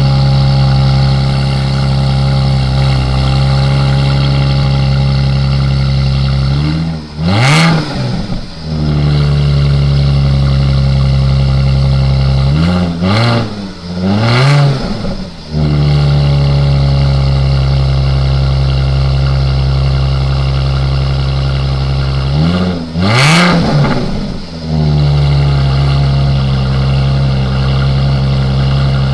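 Jaguar F-Type's supercharged 3.0-litre V6 exhaust idling steadily and revved in four quick blips: once, then twice in quick succession, then once more near the end, each falling straight back to idle with exhaust crackles.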